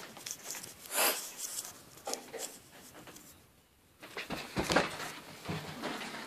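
Rustling and rubbing of a handheld phone being carried while it films, a loud rub about a second in and another burst of rustling a little before 5 s, with a short quieter spell before it.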